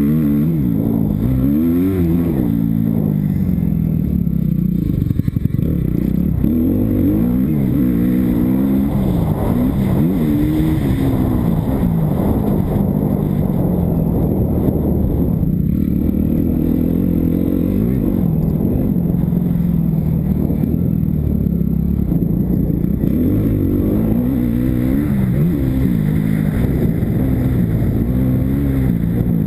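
Kawasaki KX250F dirt bike's single-cylinder four-stroke engine revving up and down while ridden hard on a motocross track, its pitch climbing and dropping every couple of seconds through the corners and straights.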